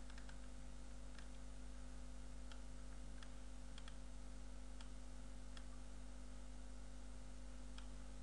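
Faint, scattered single clicks of a computer mouse, about a dozen spread irregularly, over a steady low electrical hum.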